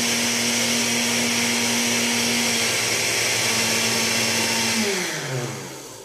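Oster Core 16-speed blender's motor base running steadily at speed 7 with no jar fitted, a loud even whine. About five seconds in it is switched off and winds down, the pitch falling as the motor coasts to a stop.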